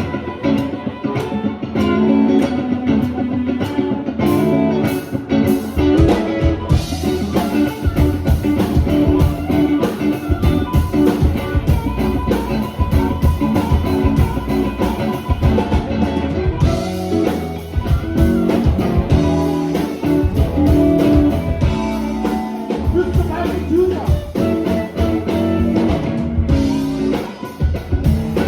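Live blues band playing, with guitar to the fore over drums and bass; the sound gets fuller about six seconds in.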